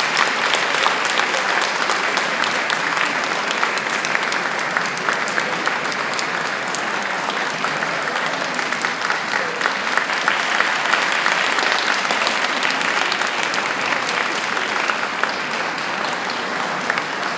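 Audience applauding, a dense even clapping that eases slightly toward the end.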